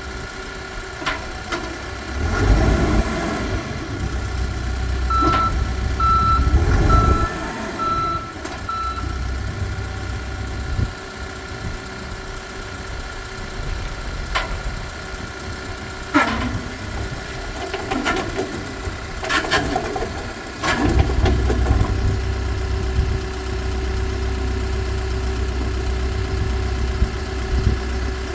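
Case 580N EP backhoe's diesel engine running and revving up and down under load, with its reversing alarm sounding five beeps about a second apart a few seconds in, and a few sharp knocks along the way.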